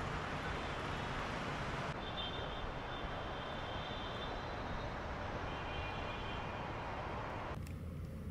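Steady rushing noise, like a motor or appliance running, with faint high tones now and then; it stops abruptly about seven and a half seconds in.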